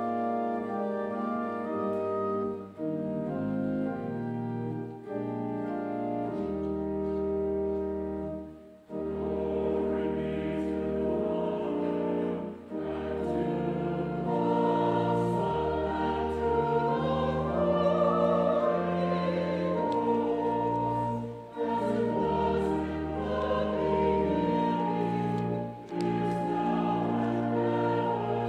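A church choir singing slow, held chords over an instrumental accompaniment with a moving bass line.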